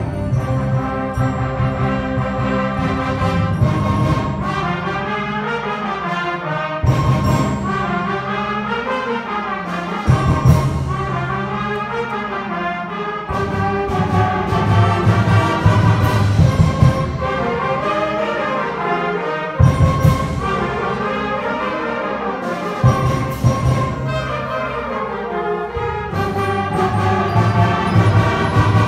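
Student concert band playing, trumpets leading over low brass and percussion, with loud accented full-band hits several times.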